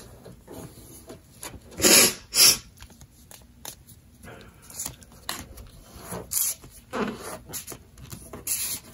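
A sheet of printer paper being handled, folded and creased by hand: irregular rustling and crinkling, loudest in two sharp swishes about two seconds in, with more near the end.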